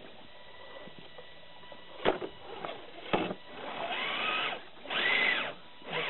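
Small electric motor of a radio-controlled scale crawler whining in two short throttle bursts, its pitch rising and falling each time, after two sharp knocks. The truck is stuck on its trailer hitch against the rocks.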